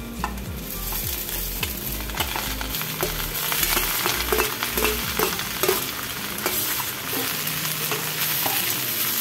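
Boiled jackfruit pieces scraped off a steel plate with a slotted spoon into a kadhai of hot oil and fried onions: the oil sizzles, louder after the first second as the moist pieces go in. Metal clicks and scrapes of the spoon on the plate and pan come throughout as the pieces are pushed in and stirred.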